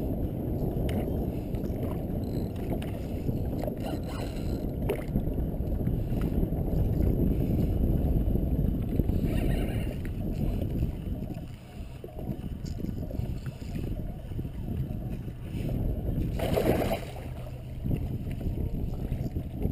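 Wind rumbling on the microphone out on open water, a steady low noise with a few light knocks early on and a brief louder rush of noise near the end.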